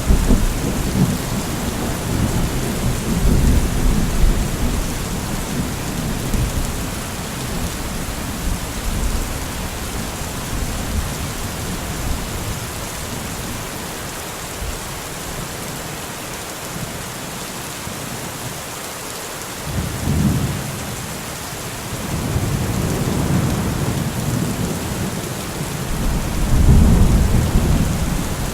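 Steady heavy rain with thunder rumbling: low rolls of thunder swell in the first few seconds, again about two-thirds of the way in, and most strongly near the end.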